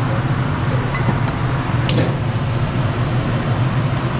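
Steady roar of gas wok burners running at full flame, with a single sharp clink about two seconds in.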